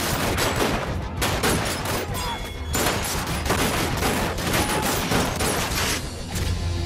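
Sustained film gunfire: many shots fired in rapid succession, with brief lulls.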